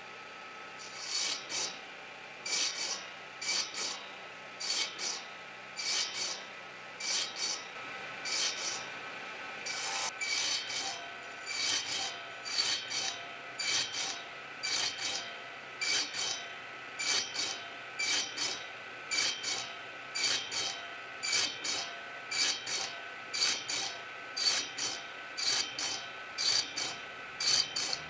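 Repeated hand strokes of an abrasive or rasp across wood, a little faster than one a second, starting about a second in. A faint steady hum runs underneath.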